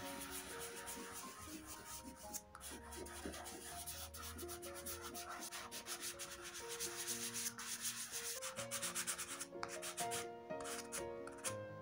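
Fingertips rubbing soft pastel into card, blending it in rapid scratchy strokes. About ten seconds in, a pastel stick starts scraping on the card. Soft background music with held notes plays underneath.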